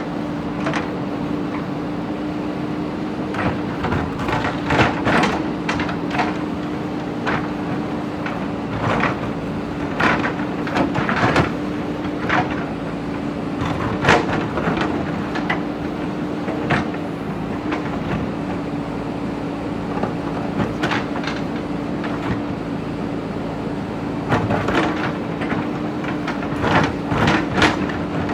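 JCB backhoe loader's diesel engine running steadily under load, with irregular clanks and knocks of the bucket striking and scraping broken brick and stone, in clusters about five, ten to fourteen and twenty-five to twenty-seven seconds in.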